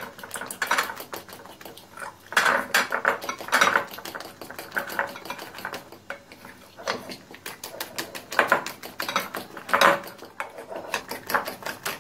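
Fork whisking a thick egg-and-flour batter in a glass bowl: rapid clinking of metal against glass, coming in louder spells every second or two.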